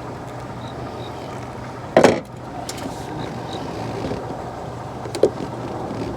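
Two knocks while hooking up 12-volt wiring: a loud clunk about two seconds in and a smaller one near the end. Both sound over the steady hum of a running fan.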